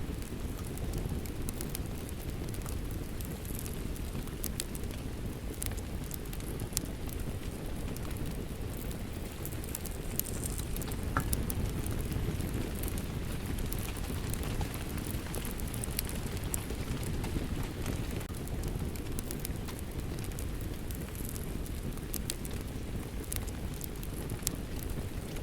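Fireplace and rain ambience: a steady low rushing of rain under irregular sharp crackles and pops from a burning wood fire.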